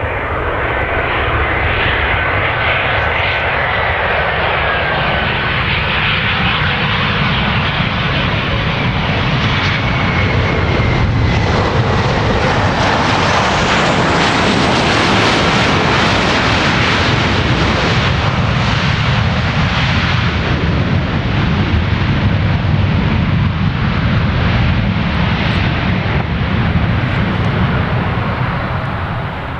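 Boeing 737-500's CFM56-3 turbofan engines in reverse thrust during the landing roll: a loud, steady jet noise that builds to its loudest near the middle and eases off near the end. A high fan whine glides down in pitch about five seconds in.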